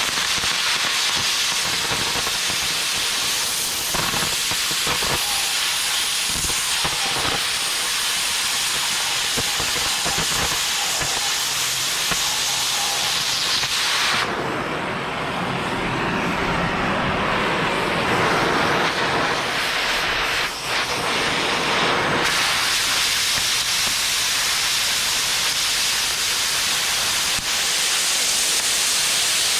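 Oxy-fuel cutting torch hissing steadily as it cuts through cast steel. For about eight seconds midway the high hiss gives way to a lower, duller rush, then the full hiss returns.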